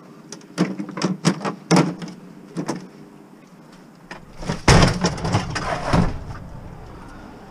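Small white appliance casing handled and slid into a car's cargo area: a run of light knocks and clicks, then about four seconds in a louder scrape and thumps as it goes in, loudest just before the five-second mark.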